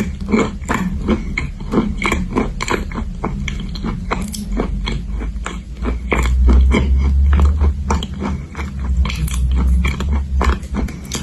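Close-miked crunching and chewing of edible chalk clay: a run of crisp bites and crunches, about three a second. A low rumble sits under the crunching from about halfway in until near the end.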